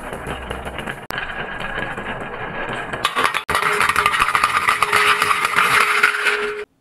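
Many marbles rattling as they roll down a wooden zigzag track. From about three seconds in comes a louder, brighter clatter as they drop one after another into a metal tin can, which rings with a steady tone. The sound cuts off suddenly just before the end.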